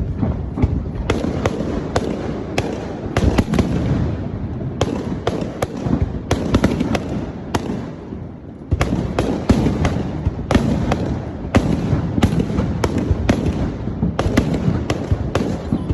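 Aerial fireworks display: a rapid, irregular series of sharp bangs and crackles over a continuous rumble of booms, easing briefly about halfway through before picking up again.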